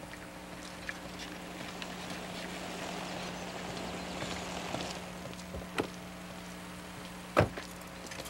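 Faint footsteps on a paved road over a low steady hum, with a soft noise swelling and fading in the middle. A sharp knock about seven seconds in is the loudest sound.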